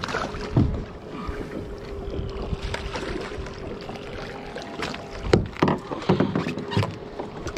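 Knocks and bumps inside a small open fibreglass boat, bunched together from about five seconds in, over a faint steady hum and the rumble of wind and water.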